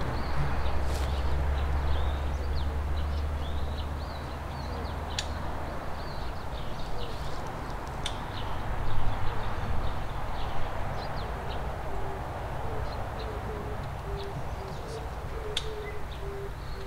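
Small birds chirping, with a dove starting to coo in short repeated notes about two-thirds of the way in, over a steady rushing noise with a low rumble that is heaviest in the first few seconds.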